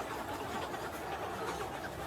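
Free-range chickens clucking softly over a steady outdoor background, with no single loud call.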